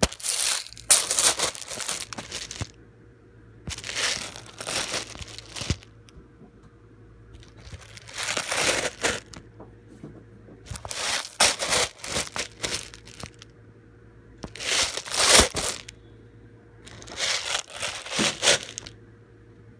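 Close crinkling and rustling, in about six bursts of one to three seconds each with short pauses between.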